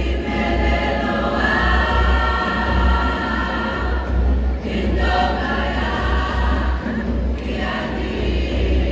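A choir singing in held, many-voiced phrases that break briefly about halfway through and again near the end, over a steady low rumble.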